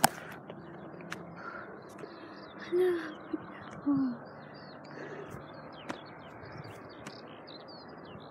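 Small birds chirping continually in the background over a steady hiss, with a few sharp clicks from the phone being handled. About three seconds in, a woman gives two short, low exclamations a second or so apart, the loudest sounds here.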